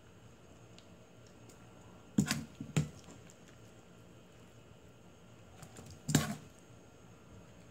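Metal ladle knocking and scraping against a nonstick wok while scooping out chicken stew: a quick cluster of clacks about two seconds in, and another about six seconds in.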